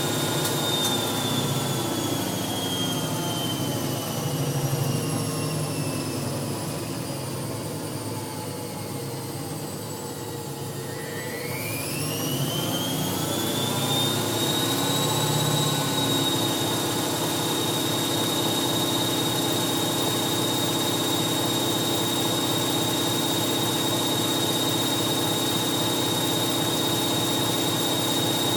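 Hoover 1100 de luxe washing machine on its spin cycle. The drum motor's whine falls steadily in pitch for about ten seconds, then rises quickly back up and holds steady at full spin speed.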